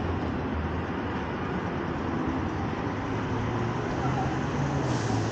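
Steady city street traffic noise, with the low hum of car engines and tyres on a busy road.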